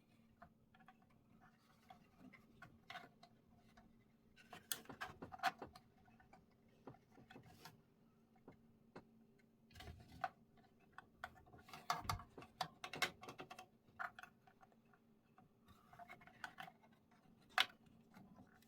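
Faint scattered clicks and light scrapes of small hard plastic and metal computer parts being handled: an M.2 SSD being lined up and pushed into its motherboard slot, coming in a few short flurries.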